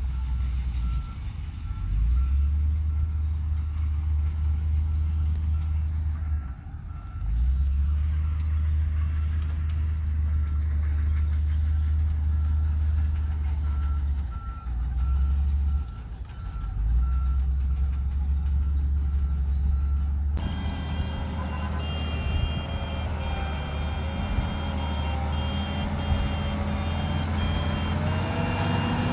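Heavy diesel earthmoving machinery running with a low drone that dips briefly a couple of times, while a reversing alarm beeps steadily. About two-thirds of the way in the sound cuts abruptly to a higher-pitched reversing beep over an engine whose pitch rises and falls.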